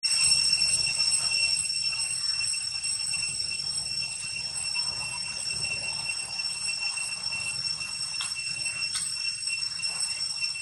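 Steady, high-pitched drone of insects, unbroken and unchanging in pitch, with two short faint chirps near the end.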